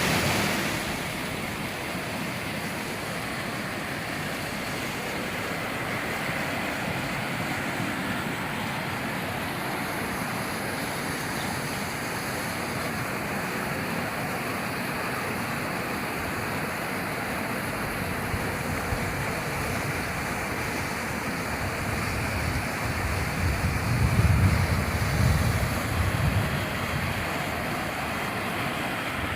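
Steady rushing noise of rainwater, with a louder low rumble for a few seconds near the end.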